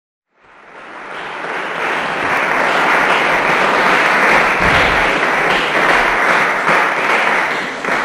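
Audience applauding, swelling over the first two seconds and starting to die away near the end.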